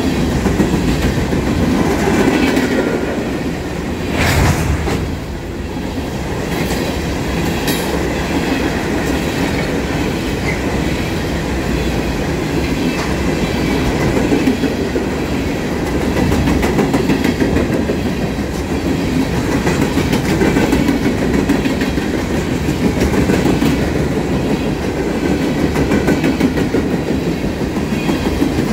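Steel open-top coal hopper cars of a freight train rolling past: a steady rumble of wheels on rail with a rhythmic clickety-clack over the rail joints, and a brief sharper knock about four seconds in.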